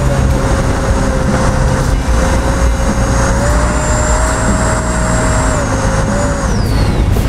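Electric ducted fan of an E-flite 80mm RC F-16 jet whining in flight, over heavy wind rush on a wing-mounted camera. The whine steps up and down in pitch with the throttle and falls away near the end.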